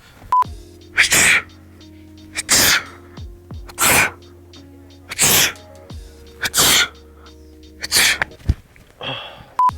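A man sneezing loudly and repeatedly, six sneezes about a second and a half apart, over background music. A short beep sounds just after the start and again near the end.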